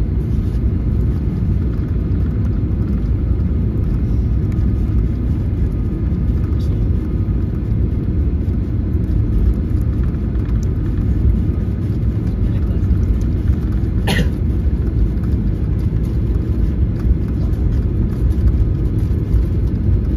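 Steady low rumble of cabin noise inside a Boeing 737-800 airliner, with one short sharp click about fourteen seconds in.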